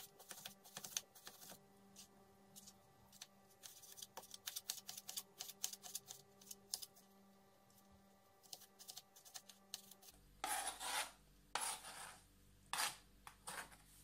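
Kitchen knife chopping raw chicken breast on a plastic cutting board: a fast, irregular run of light taps. About ten seconds in, a few longer scrapes as the knife sweeps the cubes off the board.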